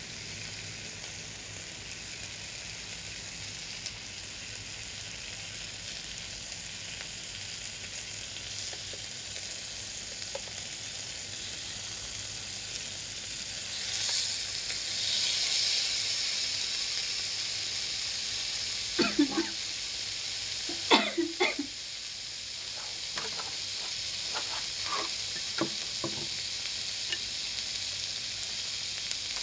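Thin pork slices sizzling on an electric grill plate, the sizzle swelling about halfway through as slices are turned with chopsticks. Later come a few sharp clicks and lighter taps of the chopsticks against the plate.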